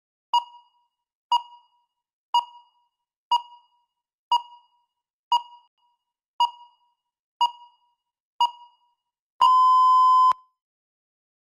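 Electronic countdown timer beeping: nine short beeps one second apart, then one longer beep lasting about a second, which marks the end of the preparation time and the start of the speaking time.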